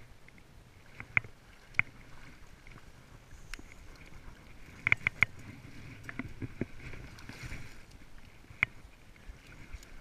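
Shallow river water sloshing and splashing around a person wading with a landing net, with a few sharp knocks: two about a second in, a quick three around the middle, and one near the end.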